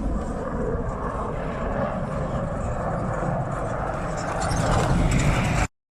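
Military aircraft flying over, a steady broad roar that grows louder near the end and then cuts off abruptly.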